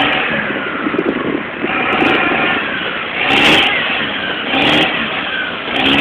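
Land Rover engine revving under load as the 4x4 drives up a muddy bank, the revs swelling and easing several times.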